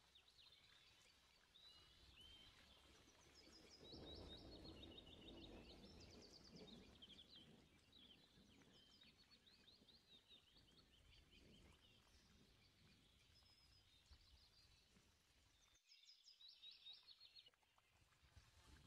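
Near silence, with faint small-bird chirps repeating in quick runs throughout and a soft low rustle from about four seconds in.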